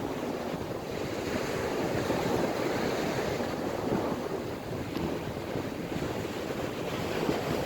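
Heavy surf breaking on a beach, mixed with strong wind buffeting the phone's microphone: a steady rushing noise that swells a little now and then.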